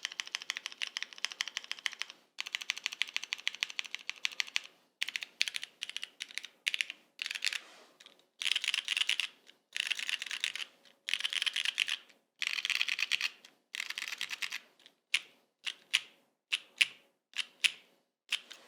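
Keystrokes on a Tomo custom mechanical keyboard with lubed and filmed Cherry MX Brown tactile switches, a polycarbonate plate and GMK keycaps: fast runs of rapid typing, then, from about two thirds of the way in, single key presses spaced apart.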